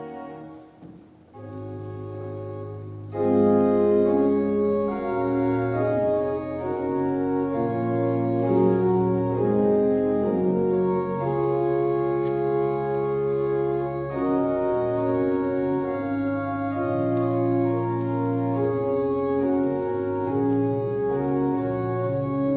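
Church organ playing slow, sustained chords. It starts quietly and swells to a much fuller sound about three seconds in.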